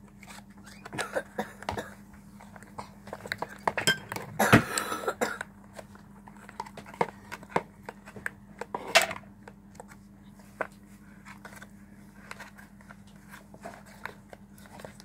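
Hands stirring and kneading sticky slime in a plastic tub: irregular clicks, knocks and handling noises, with a louder stretch about four to five seconds in and a sharp knock about nine seconds in. A faint steady hum runs underneath.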